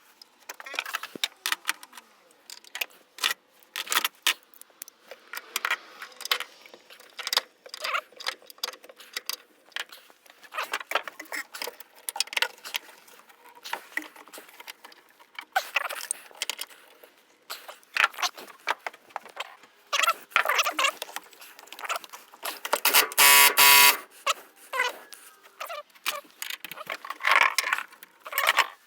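Metal tools and parts clinking, clattering and knocking irregularly during hands-on work. Late on, one loud, ringing, high-pitched screech lasts about a second.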